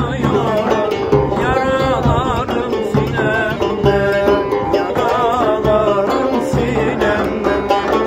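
A cümbüş, the Turkish banjo-like lute with a metal bowl, plucked in a steady rhythm of low notes, with a man singing an ornamented, wavering melody over it.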